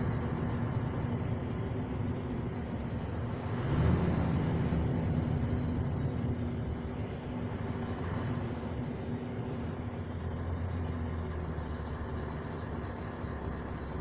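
Scania V8 truck engine heard from inside the cab, running at low road speed with a steady low drone; it swells louder and higher about four seconds in, then settles back to a steady run.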